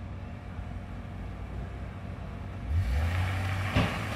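Box truck engine running, then growing louder and revving about three seconds in as the U-Haul truck pulls away from the security barrier.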